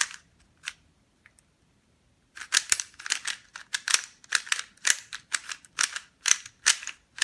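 Plastic 3x3 Rubik's cube being turned by hand: its layers clack sharply as they snap round. A few clacks, a pause of about a second, then quick turning with three or four clacks a second.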